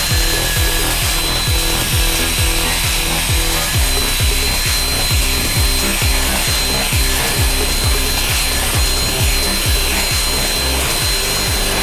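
Electric drill with a paddle mixer running steadily as it stirs dry plaster of Paris and sand in a plastic tub. Under it runs electronic background music with a steady thumping beat.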